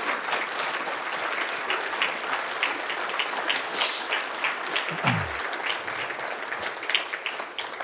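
A roomful of people applauding, a dense patter of many hands clapping that thins out near the end, with one brief louder burst about four seconds in.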